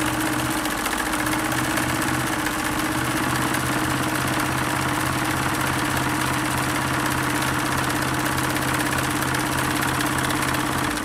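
Singer 328K sewing machine running steadily at speed, stitching a twin-needle zigzag through fabric, with a constant motor hum under the rapid needle strokes; it stops abruptly at the end.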